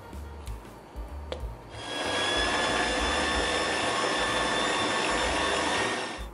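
Electric stand mixer's motor running steadily with a high whine as the beater mixes cheesecake batter. It starts about two seconds in and stops near the end. Before it there is a quieter stretch with one sharp click.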